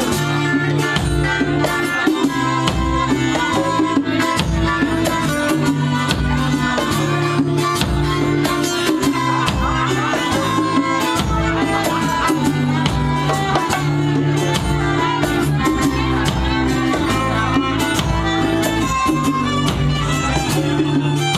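Live band music in an instrumental passage: a strummed acoustic guitar and a bowed fiddle over a full band, playing steadily.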